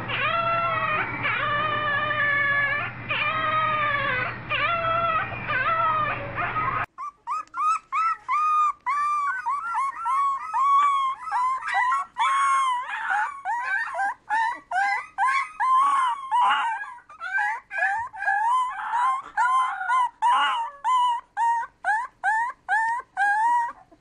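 Puppies howling: long, wavering high howls over a low steady hum for about seven seconds, then a sudden cut to a puppy giving a fast string of short, high howls and yelps, two or three a second.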